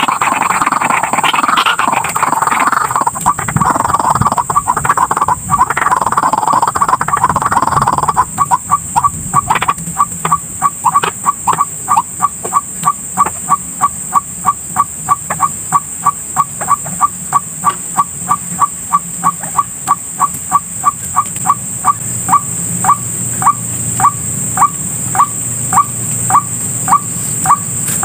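White-breasted waterhen calling. A dense run of harsh, overlapping calls lasts about eight seconds, then gives way to a long, even series of single short notes, about three a second, slowing toward the end.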